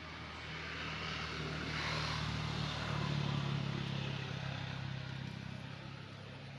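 A motor engine's steady drone that grows louder toward the middle and then fades again.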